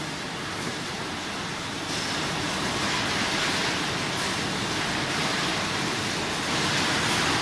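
Steady hiss and rumble of bottling-plant machinery, with no distinct rhythm or strokes, getting louder about two seconds in and again near the end.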